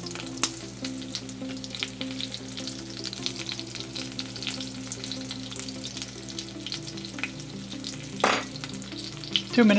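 Breaded chicken cutlets frying in olive oil and butter in a nonstick skillet, a steady sizzle with crackling spatters, just after being turned. A single sharp clatter comes about eight seconds in.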